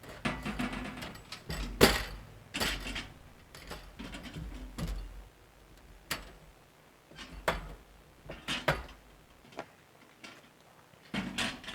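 Irregular clatter of things being handled: a dozen or so sharp knocks and clicks with rustling between them, the loudest knock about two seconds in.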